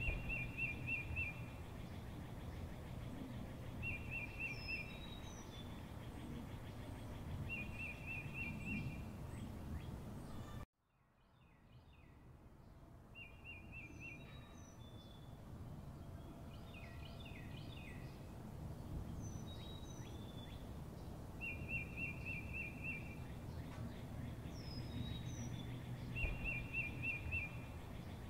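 Birdsong over steady outdoor background noise: one bird repeats a short trilled phrase every few seconds while others give high, brief chirps. About ten seconds in, the sound cuts out abruptly and then fades back up.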